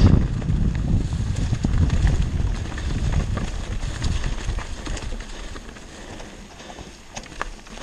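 Mountain bike riding down a leaf-strewn dirt trail: tyre and trail noise with wind rumbling on the microphone, easing off after about five seconds, and scattered clicks and rattles from the bike.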